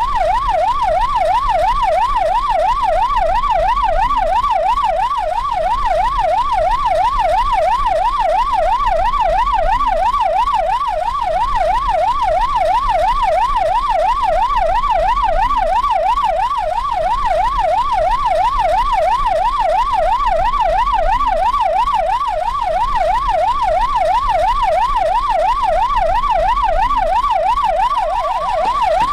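Police car siren in fast yelp mode, its pitch sweeping up and down several times a second without a break, over a low engine and road rumble.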